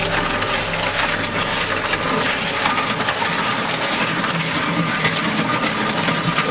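Heavy crushing machine grinding through material: a steady dense din full of small cracks and splintering.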